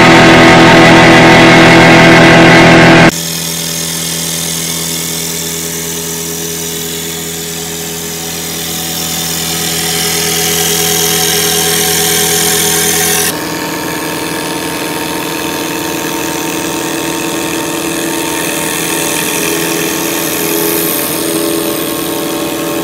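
Haas TM-2 CNC mill running, its end mill cutting a solid urethane pattern block: a steady machine hum and spindle tone under a hiss of cutting. The sound shifts abruptly twice, about three seconds in and about thirteen seconds in, and is loudest at the start.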